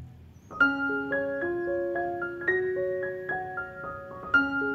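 Background music: a simple piano-like keyboard melody of single notes, starting about half a second in after a brief pause.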